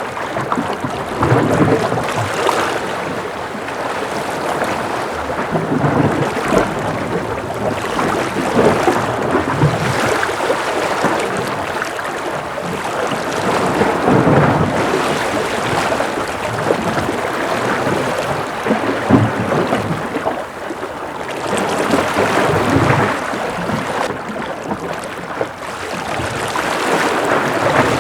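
Gentle ocean waves washing and splashing, swelling and falling back in irregular surges every few seconds.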